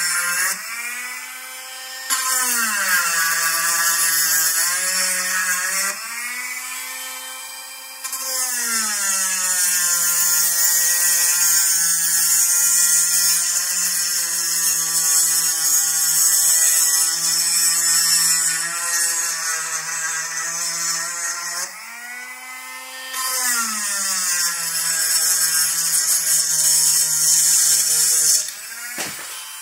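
Dremel rotary tool grinding out the motor-mount holes in a metal RC buggy chassis plate: a steady motor whine that drops in pitch under load, with a bright grinding hiss while the bit is cutting. It eases off briefly a few times and stops shortly before the end.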